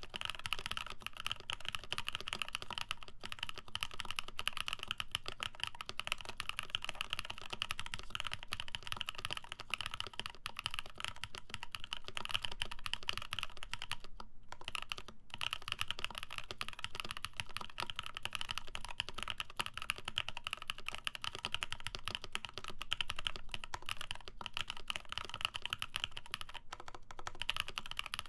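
Continuous fast typing on a J-01 custom mechanical keyboard with lubed Prevail Epsilon switches, GMK Shoko keycaps and an FR4 plate, a dense stream of key clacks with two brief pauses about halfway.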